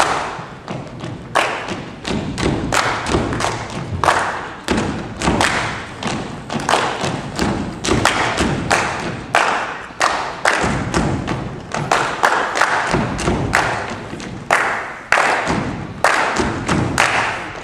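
Percussion ensemble performing a body-percussion piece: many sharp hand claps and thumps in a busy, interlocking rhythm, ringing in the hall.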